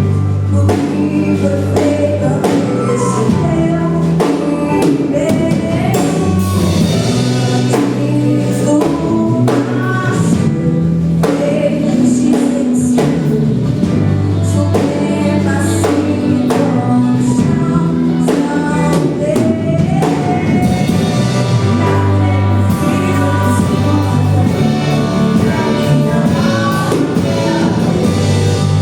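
Gospel worship song: voices singing over a band with bass and drums, playing continuously at a steady loud level.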